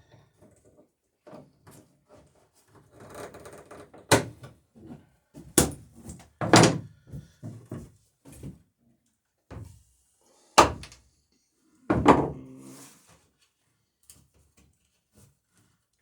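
Hammer blows on copper rivets in a wooden dory's planking: about five heavy knocks at irregular intervals among lighter taps, some followed by a short low ring from the hull.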